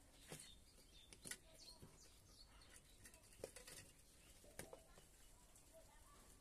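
Near silence with a few faint, short scratches and clicks as a dog paws and sniffs at soil in a hole, and faint bird chirps in the background.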